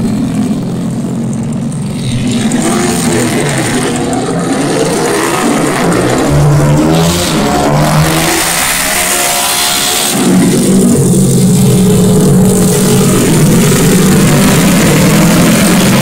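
Small race motorcycles' engines revving hard as they ride past, the pitch rising and falling with throttle and gear changes. It gets louder from about ten seconds in as several bikes come by together.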